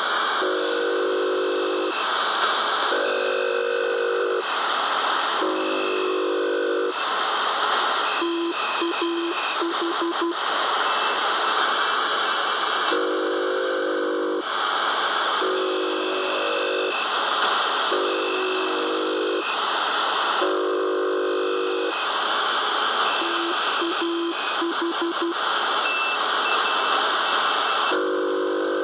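Shortwave receiver tuned to 4220 kHz playing an unidentified signal over steady static hiss: a low, buzzy note keyed in blocks of about a second, four in a row some 2.5 s apart, then a quick run of short beeps, the cycle repeating. The listener takes it for most likely Morse, but unlike usual shortwave Morse, and not the Buzzer.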